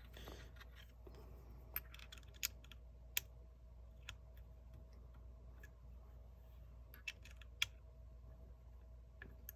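Scattered sharp clicks and taps of polymer and metal gun parts as a CZ Scorpion EVO 3's grip module is worked back onto its receiver, over a faint steady hum.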